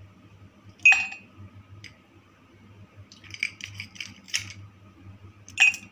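Ice cubes and metal tongs clinking against glass as cubes are lifted from a glass bowl and dropped into a glass mug. There is a sharp ringing clink about a second in, a run of small clicks from about three to four seconds, and another sharp clink near the end.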